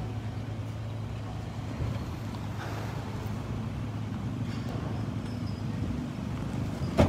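An engine idling with a steady low hum under a few light knocks of handling, and one sharp bang near the end.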